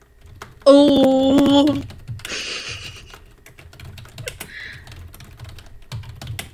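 Rapid typing on a computer keyboard, a steady run of key clicks. About a second in, a woman's voice sounds loudly for about a second over the typing.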